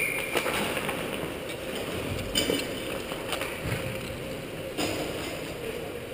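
Ice hockey rink sound: skate blades scraping and gliding on the ice, with a few sharp clacks scattered through.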